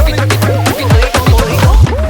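Upbeat dance music with a steady beat, deep falling bass-drum hits and a bending synth melody, in an Afrobeat style.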